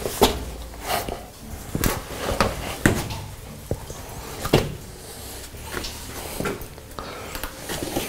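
Footsteps and scuffs on wet rock in a low, narrow cave passage: irregular knocks and shuffles with a short echo.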